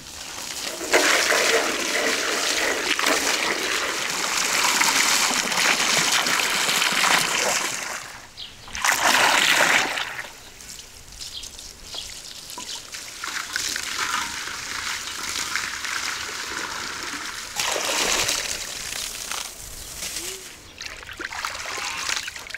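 Water splashing and trickling in a large metal basin full of fish as they are stirred and washed. The sound is loud and continuous for most of the first ten seconds, then turns into quieter, uneven splashing.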